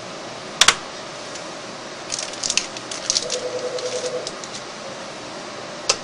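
Memory modules being seated in an HP ProLiant DL380 server's DIMM slots: a sharp double click just under a second in as a module is pressed home and its latch snaps, then a run of small plastic clicks and rattles from handling, and another single click near the end.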